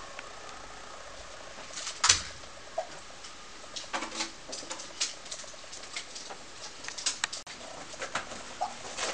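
Water dripping from a leaking, water-damaged ceiling into catch containers: irregular ticks and small plinks, with one louder drip about two seconds in.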